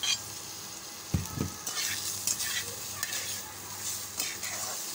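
Fried potato sticks sizzling in hot oil and spices in a pan as they are tipped in and stirred, with a spatula scraping through them in repeated strokes. A low knock about a second in.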